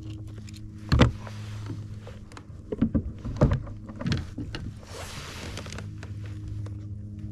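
Knocks and clunks of gear against a plastic fishing kayak's hull, the loudest about a second in and a few more near the middle, over a steady low hum.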